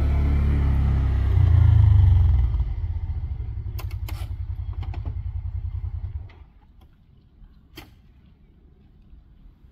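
Side-by-side utility vehicle's engine running as it pulls up, swelling briefly, then idling with a chugging pulse before it is switched off about six seconds in. A few sharp clicks come around the middle and again near the end.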